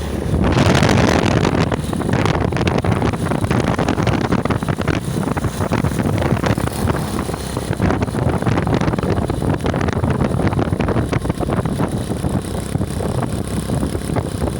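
Wind buffeting the microphone, a dense rumble that jumps up about half a second in, with road vehicle noise mixed in.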